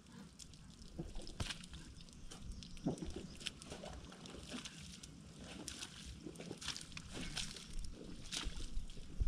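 Irregular splashes and squelches of water and wet mud as workers dig out the waterlogged bed of a collapsed fish pond.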